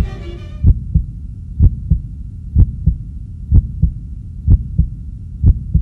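Heartbeat sound effect: paired low lub-dub thumps, about one beat a second, over a steady low rumble. It takes over as string music stops less than a second in.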